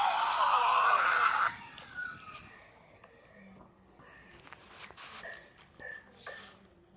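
Electronic sound effects from a toy pony's speaker: a noisy whinny-like sound over high-pitched tones breaks off about a second and a half in, then a high-pitched chirping carries on in uneven pulses and fades out near the end.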